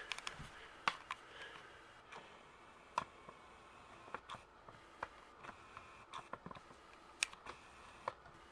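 Faint, irregular clicks and light taps of a handheld camera being handled and moved.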